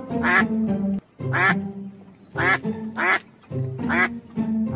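A duck quacking: a series of short, nasal quacks, about one a second. Background music with held notes plays underneath.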